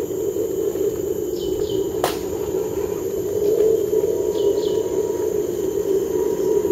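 Tropical forest ambience: a steady insect drone with thin high whines, two quick pairs of bird chirps, and a single sharp click about two seconds in.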